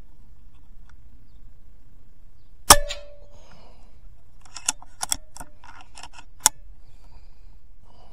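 A .22 PCP air rifle fires once, a sharp crack followed by a brief ringing tone. A few lighter clicks and knocks follow over the next few seconds.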